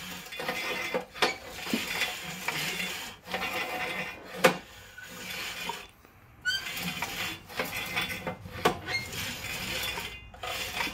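Scattered light metallic clicks and clinks from a Honda GX390's exposed valve train and cylinder head as the engine is turned over by hand to check that the valves open and close; the sharpest click comes about four and a half seconds in.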